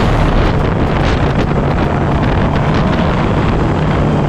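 Wind rushing over a helmet-mounted camera's microphone as a sport motorcycle rides along at a steady speed, its engine holding a steady note underneath.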